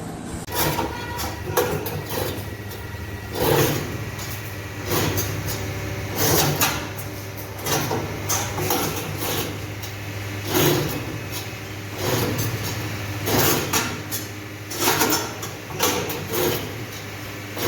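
Automatic CNC ring-making machine for TMT steel bar running: a steady motor hum, with metallic clanks and clatter about every one and a half seconds as it works through its cycle.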